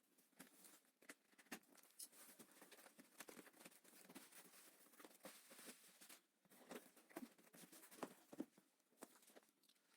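Faint rustling and scattered light clicks from a cardboard shipping box and its packing being opened by hand.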